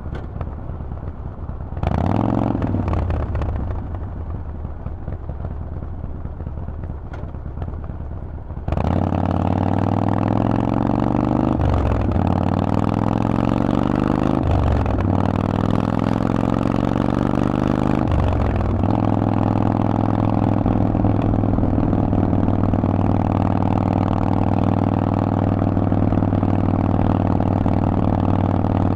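Harley-Davidson Forty-Eight's air-cooled V-twin through a Vance & Hines exhaust: a short rev about two seconds in, then running quietly, then pulling away hard about nine seconds in. The pitch climbs through three upshifts, each a brief dip, before the engine settles into a steady cruise.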